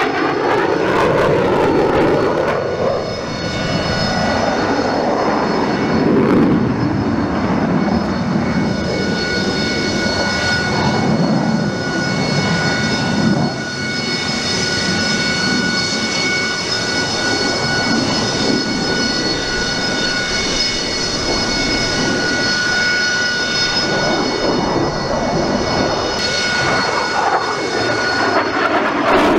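MiG-29 Fulcrum's twin Klimov RD-33 turbofan engines in a display flight: a loud, steady jet noise, with a high turbine whine that holds from a few seconds in until near the end.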